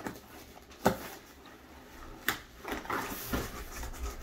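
Cardboard box lid and flaps being handled and closed: a few sharp knocks of the cardboard with faint rustling in between.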